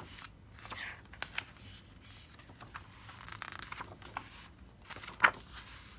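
Pages of a photobook being turned by hand: paper rustling and scraping, with a few small clicks and one sharp snap about five seconds in, the loudest moment.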